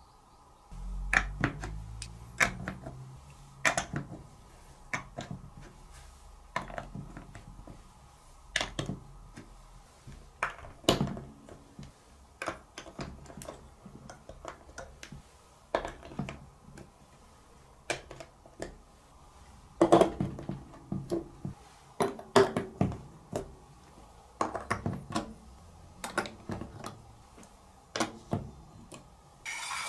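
Large plastic toy building blocks being handled and pressed onto the studs of a plastic baseplate and onto each other: irregular clicks and knocks, some in quick clusters.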